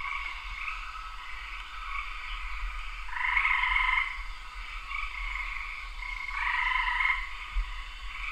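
A chorus of frogs calling: a dense, continuous trilling that swells louder twice, about three seconds in and again about six and a half seconds in.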